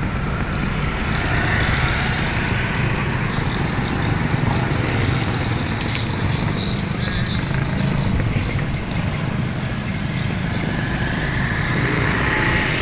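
Street traffic: a steady low rumble of motorcycle and car engines, with vehicles swelling past about two seconds in and again near the end.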